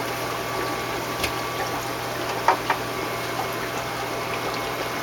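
Steady running and bubbling water of an aquarium sump, with air bubbling up through the algae scrubber's sliced airline. About two and a half seconds in come two sharp clicks close together, with a fainter one a second earlier.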